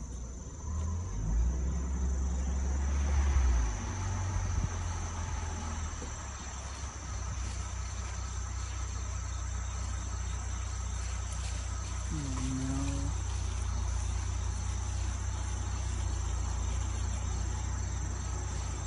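Steady high buzzing of an insect chorus over the low rumble of a car's engine heard from inside the car, with a short low rising sound about twelve seconds in.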